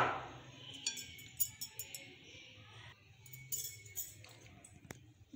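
Dishes being handled on a counter: a sharp knock as a bowl is set down, followed by scattered light clinks and taps of a glass bowl.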